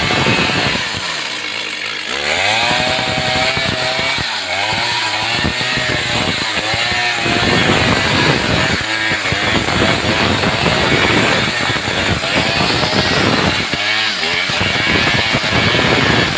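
Stihl two-stroke chainsaw running and cutting wood, its engine pitch dipping and rising again and again as the chain bogs into the cut and frees up.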